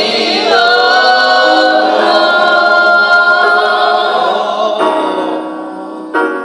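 A choir singing a cappella in held, shifting harmony. Near the end the singing gives way to sudden struck chords that ring and fade, twice.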